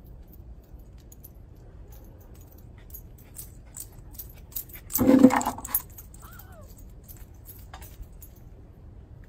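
Small plastic basket clattering and its handle rattling as a dog snatches it up right beside the microphone, about halfway through, for under a second.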